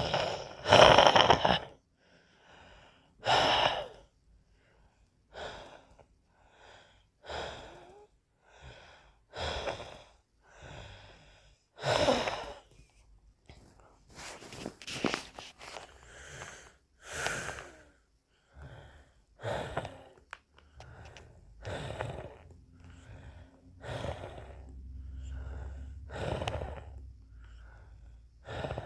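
A person wheezing: a run of noisy breaths at irregular intervals, some short and some drawn out, the loudest about a second in and about twelve seconds in.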